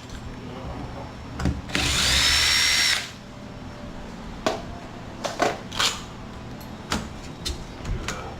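Power drill running in one short burst of about a second, backing out a screw of the old door lock, followed by several light clicks and knocks of the lock hardware being handled.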